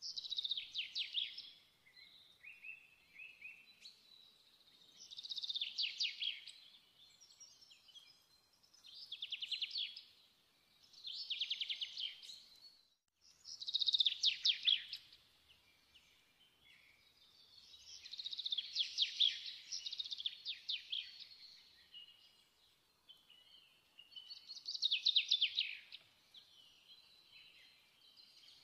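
A songbird singing: short, high, rapidly trilled phrases, each a second or two long, repeated every few seconds with brief pauses between.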